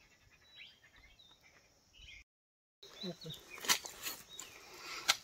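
Faint bird chirps, then crackling rustles of dry leaf litter and cloth as a snake bag is lowered and shifted on the ground with a snake tong.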